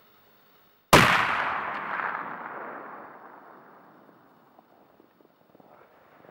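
A single gunshot about a second in, followed by a long rolling echo that fades over about three seconds.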